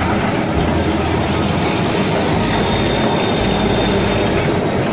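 Kolkata electric street tram running past on its rails, a steady rolling rumble of steel wheels on the track.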